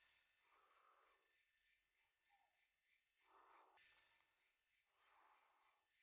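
Faint night insect chirping: short high-pitched chirps repeating evenly at about three a second. A few soft, lower-pitched smears of sound come and go underneath.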